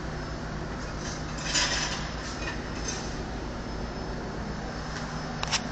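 Steady machinery hum and hiss from refrigeration equipment, with a brief rustle of the camera being handled about a second and a half in and a few clicks near the end.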